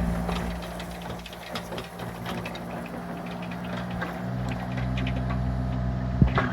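An engine running steadily, growing somewhat louder partway through, with many small clanks and rattles on top and a sharp knock near the end.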